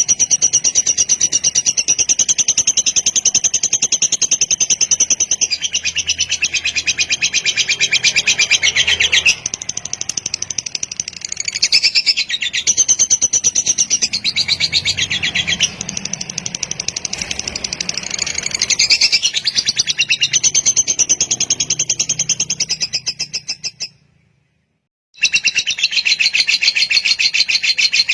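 Lovebird singing a long, rapid chattering trill (the 'kekek panjang' song), high-pitched and almost unbroken. Near the end it fades out to about a second of silence, then starts again.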